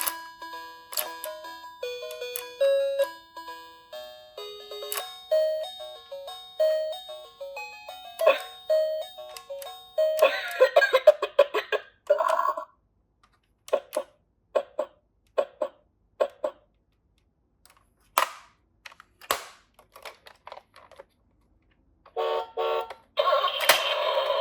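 Chiming bell-like background music for about ten seconds. Then toy minicars rattle down a slope in two dense runs of clatter, with scattered sharp clicks and knocks in between.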